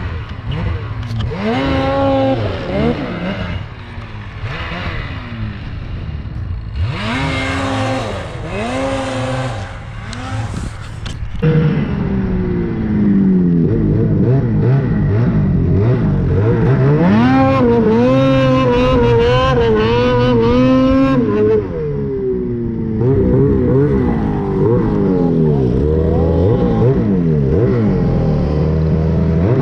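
Ski-Doo Summit snowmobile's turbocharged two-stroke Rotax 850 E-TEC Turbo R engine, revved hard and let off again and again as the sled runs through snow. It is heard first from beside the track, then much louder and closer, from on board, from about eleven seconds in.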